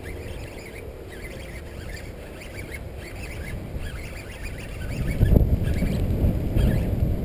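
Birds calling in a steady run of short high chirps. From about five seconds in, wind gusts on the microphone with a low rumble.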